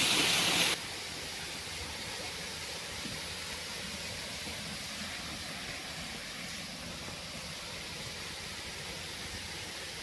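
Water pouring down a concrete dam spillway, a loud, even rush that cuts off abruptly under a second in. A much quieter, steady rushing hiss of water follows.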